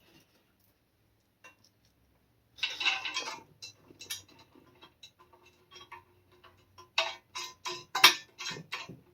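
Metal bolts, nuts and hand tools clinking and clicking while the bushing hardware is fitted to a car's rear trailing arm: a short clatter about two and a half seconds in, then a run of sharp clicks, about four a second, near the end.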